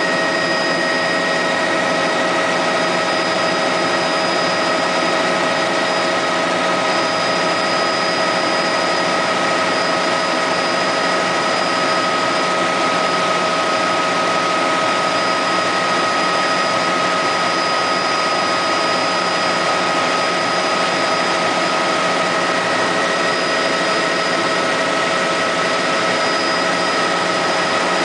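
Helicopter in steady flight heard from inside the cabin: a constant loud drone of engine and rotor, with several steady high whining tones held throughout.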